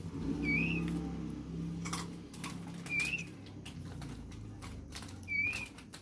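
A bird chick cheeping three times, short high chirps that bend upward, about two and a half seconds apart. Under them, light clicks and scrapes of a toothpick stirring crickets into dry feed in a small plastic tub, over a steady low hum.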